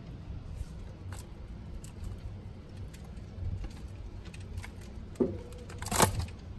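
A paper plate being handled and slid out of a freezer over a steady low hum, with light clicks and taps, a brief squeak about five seconds in and a louder knock just before the end.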